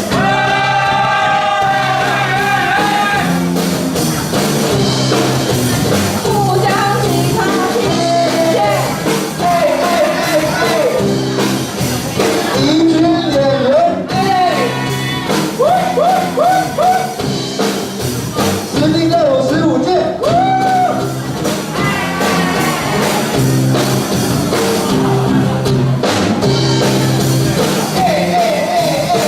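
A song with a singing voice over instrumental backing.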